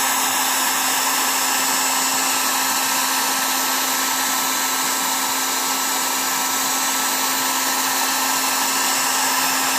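Electric heat gun running steadily, blowing hot air onto vinyl grille letter decals to loosen them: a constant rush of air with a steady hum underneath.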